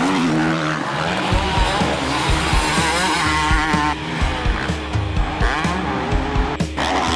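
Motocross bike engines revving hard with rising and falling pitch, mixed with background music that has a steady low beat.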